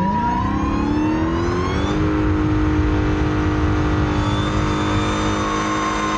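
Car engine accelerating, its pitch rising for about two seconds and then holding steady at a constant speed.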